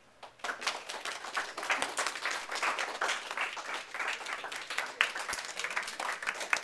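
Small audience of classmates clapping, the applause starting abruptly about half a second in and carrying on steadily.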